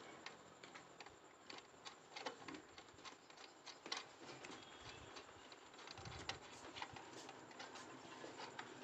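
Faint, scattered clicks and light taps of metal parts being handled while fitting a miter saw blade: the arbor bolt, flange and blade guard.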